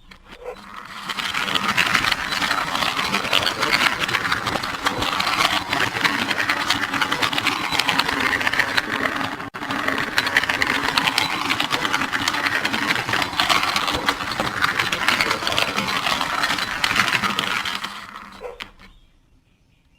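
A fast, continuous mechanical rattle that fades in over the first two seconds, breaks off for an instant about halfway, and fades out near the end.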